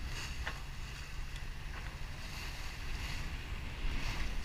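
Wind buffeting the microphone over the steady rush of sea water along a sailboat's hull under way, with a few brief splashes.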